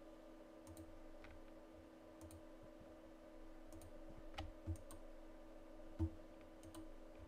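Light, scattered clicks and taps of a computer keyboard and mouse being used, a dozen or so spread unevenly and one sharper tap about six seconds in, over a steady low electrical hum.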